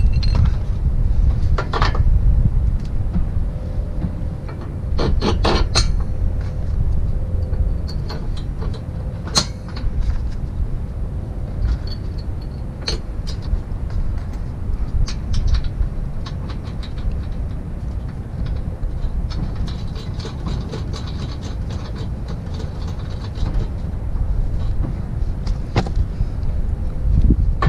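Metal clinks and clanks of bolts, washers and steel mounting brackets being handled and fitted while a truck side step is bolted on, with a run of rapid clicks near the end, over a steady low rumble.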